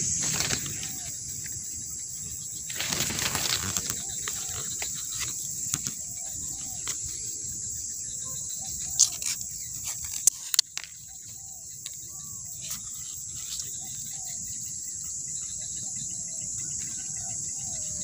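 Steady high-pitched chirring of crickets, with leaves and twigs rustling as foliage is pushed aside, a burst about three seconds in and a few sharp snaps or clicks around the middle.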